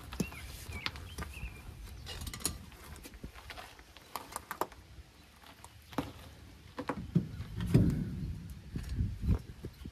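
A steel trailer wheel with a new tire being rolled over gravel and lifted onto the hub's lug studs: scattered clicks, scrapes and metal knocks, with a few heavier thumps of the wheel against the hub late on.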